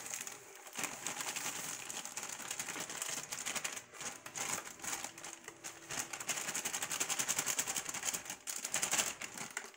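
Thin plastic bag of cake mix crinkling and rustling as it is squeezed and shaken empty over a bowl, a rapid dense crackle that grows busier in the second half, with the dry mix pouring out.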